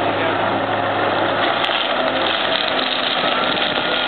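Heavy machine's engine running steadily under load, a continuous mechanical rumble with a faint whine over it.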